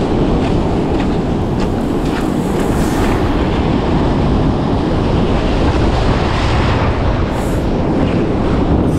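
Wind buffeting the microphone over the steady rush of surf washing across a rock ledge, with a few splashing footsteps in shallow water in the first couple of seconds.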